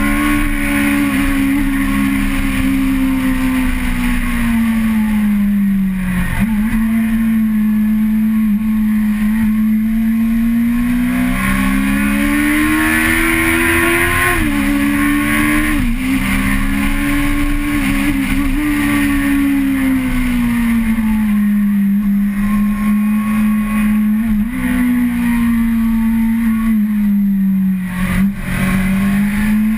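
Car engine heard from onboard, running hard, its pitch climbing and falling with the throttle, with a few sudden drops in pitch along the way.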